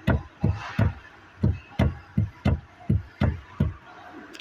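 Rapid series of heavy knocks, about three a second and slightly uneven, each a low dull thump, with a sharp click at the very end.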